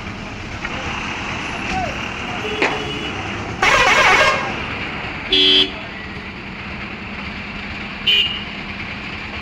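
Bus horns honking over steady street-traffic noise: one loud blast of just under a second about three and a half seconds in, a shorter pitched toot about a second later, and another brief toot near the end.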